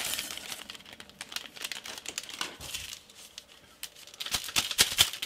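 Crinkling and crackling of a plastic instant-noodle packet being handled, with a burst of sharper crackles about four seconds in.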